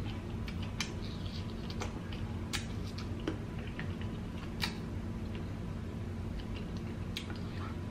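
Kiwi fruit being peeled by hand and eaten close to the microphone: a few scattered small, sharp clicks from fingers on the fruit and from the mouth. A steady low room hum runs underneath.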